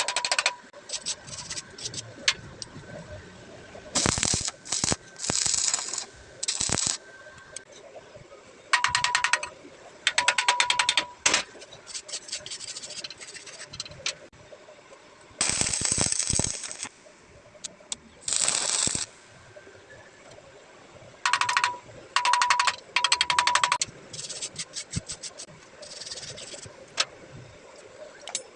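Arc welding on a vertical joint, the arc crackling in a string of short bursts of one to two seconds each, with brief pauses between.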